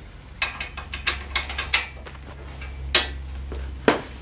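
Light metallic clicks and clinks of bolts and nuts being handled while the mounting bolts of a steel ATV front rack are started by hand, with sharper knocks about three seconds in and near the end.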